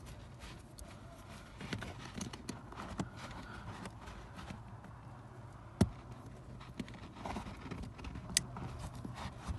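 Hand-handling noises as an oxygen sensor cable is pulled up through a rubber floor grommet in a car's footwell: light rustling with scattered small clicks and taps, a sharp click about six seconds in and a brief high ping a couple of seconds later, over a steady low hum.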